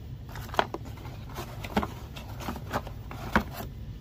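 Unboxing handling noise: hands moving accessories and cardboard in a molded-pulp packing tray, giving a few sharp clicks and knocks with light rustling. The loudest knocks come about half a second in and near three and a half seconds.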